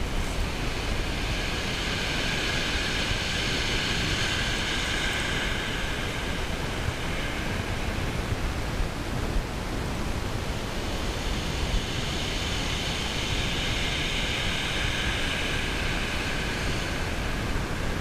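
Steady wind and sea noise on the microphone, with a high whirring that comes in twice for several seconds each.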